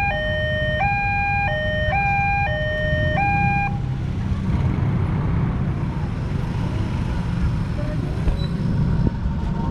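Railway level-crossing warning alarm sounding a two-tone electronic hi-lo signal, switching pitch about every two-thirds of a second over the low running of motorbike engines. It stops about four seconds in, as the crossing barrier lifts and the crossing reopens, leaving the engines and street traffic noise.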